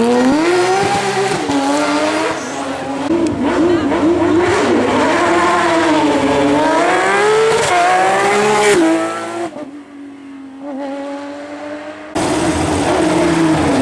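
Porsche 997 GT3 rally car's flat-six engine at high revs, its pitch rising and falling with throttle lifts and gear changes. About nine seconds in the sound drops away, then cuts back in abruptly and loud a couple of seconds before the end.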